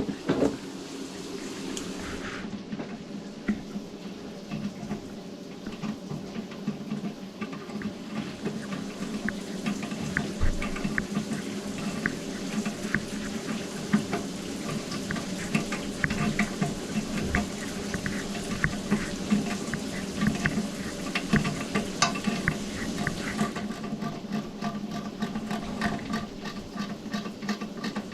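A steady motor hum with continuous irregular clicking and crackling rattle over it.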